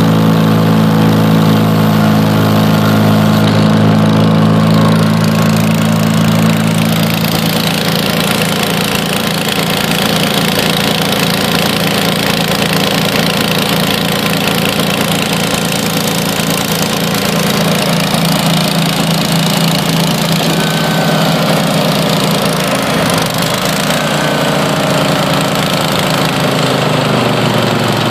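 Vermeer BC625A brush chipper running on its Kohler Command Pro 25 V-twin engine, a loud, steady engine note. About seven seconds in it turns hissier and brighter, and the engine's pitch shifts slightly near the end.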